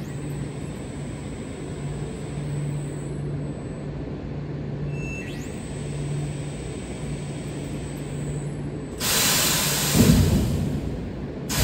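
Steady low hum of a factory hall with a faint pulsing tone. About nine seconds in, a sudden loud hiss lasts about a second and fades, and a second hiss comes just before the end.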